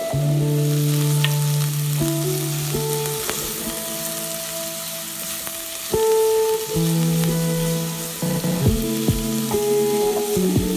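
Chopped onions, garlic and curry leaves sizzling in hot oil in a clay pot, stirred with a wooden spoon. Background music with held notes that change every second or so plays over it.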